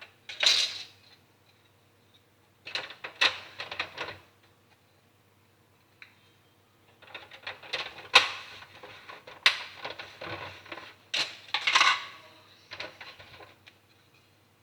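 Clicking and clattering of small hard parts of an Xbox 360 Slim console being handled and fitted, in several bursts of quick knocks, the longest in the second half.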